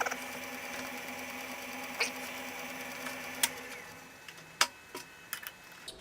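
South Bend Heavy 10 lathe running with a steady hum, with two short squeals near the start and about 2 s in. The hum winds down about 4 s in, and a few sharp metallic clicks follow.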